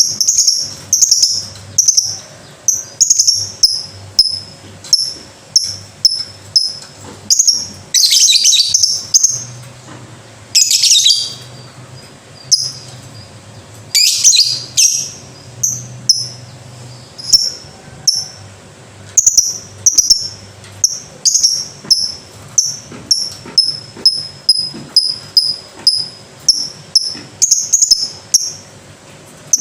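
Lovebird calling: a steady run of short, high-pitched chirps, about two a second, broken three times in the first half by longer rattling trills.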